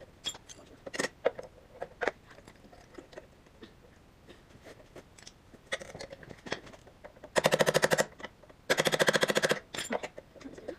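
Hand tools clicking and knocking against engine parts during disassembly, then two loud bursts of rapid, even clicking, each about a second long, like a ratchet wrench being spun to loosen a fastener.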